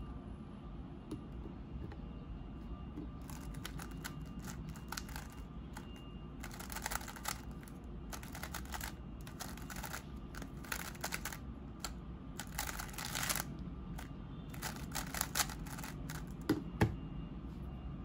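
GAN 356 M magnetic speed cube being turned fast through a solve: rapid clicking and clacking of the layers in quick flurries. Near the end come two thumps as hands slap the speed timer to stop it.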